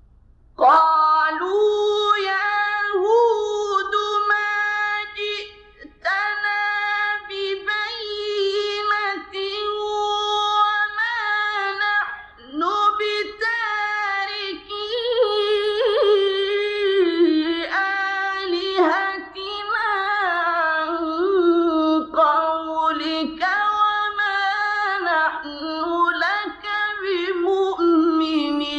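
A male Qur'an reciter chanting in a high register, in the melodic drawn-out style, with long held notes that turn and waver in pitch. He pauses briefly for breath twice.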